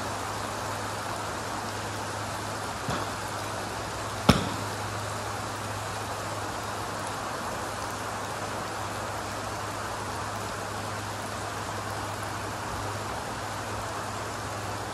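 Steady rain falling, with a low hum underneath. About four seconds in, one sharp crack: a Mizuno MP-33 blade iron striking a golf ball off the hitting mat.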